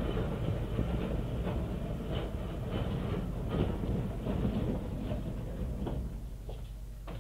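Glasgow Mark 1 Coronation tramcar running on rails: a rumble with irregular clicks and knocks from the wheels and track, dying down about six seconds in. Muffled, low-fidelity old tape recording.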